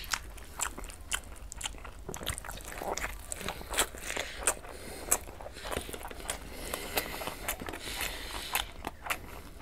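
A person chewing and biting mouthfuls of fried egg at speed, making many quick, irregular clicks and crunches. The eggs have gone a bit hard after sitting.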